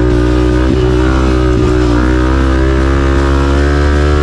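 Honda CRF250F's single-cylinder four-stroke engine running under throttle at fairly steady revs as the dirt bike rides the motocross track, with two brief knocks in the first couple of seconds.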